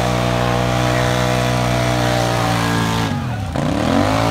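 ATV engine held at steady high revs in a tug-of-war pull. About three seconds in, the revs drop sharply and climb back up.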